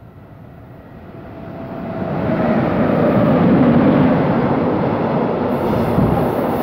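A train approaching and passing close by, growing louder over the first two to three seconds, then a steady loud rush of wheels on the rails.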